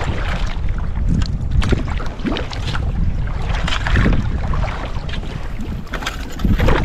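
Wind buffeting the microphone in a steady low rumble, with the splashes of kayak paddle strokes in choppy water repeating every second or so.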